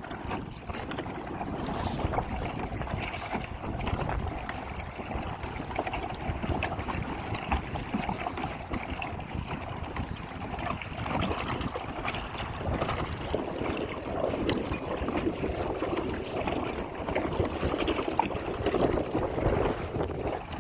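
Water sloshing and splashing against a kayak's hull as it is pedalled along, with wind buffeting the microphone.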